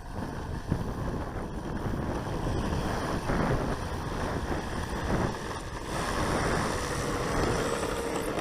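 Gusty wind buffeting the microphone, rising and falling in strength.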